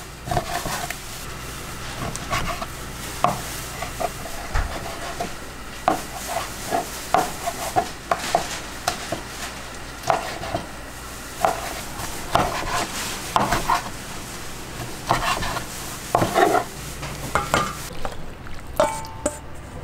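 Food being stirred and worked by hand in a bowl, with irregular knocks and clinks, over a steady sizzling hiss of frying oil. The hiss drops away near the end.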